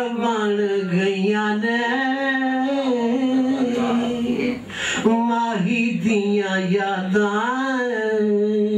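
A man singing unaccompanied, drawing out long ornamented notes that bend and waver in pitch, with a brief breath about halfway through.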